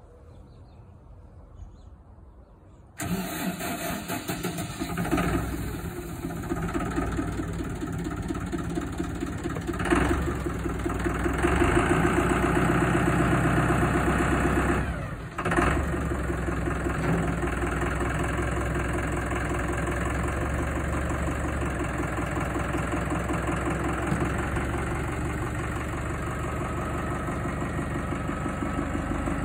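2004 Deutz-Fahr Agroplus 85 tractor's diesel engine starting up about three seconds in, running a little higher for a few seconds, then settling into a steady idle.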